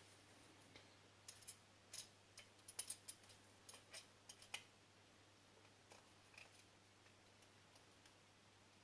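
Faint, scattered clicks and light taps of small tools or parts being handled, about a dozen, mostly in the first five seconds. Otherwise near silence with a faint steady hum.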